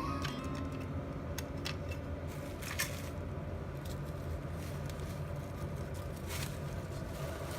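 Handling noise over a steady low hum: scattered light clicks and crinkles, as of merchandise and its packaging being handled.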